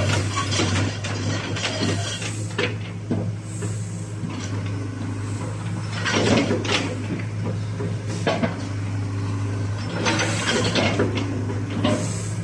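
Hitachi ZX60 mini excavator's diesel engine running with a steady low hum as the machine turns and moves. Sharp metallic clanks and knocks come every second or two, loudest about six seconds in.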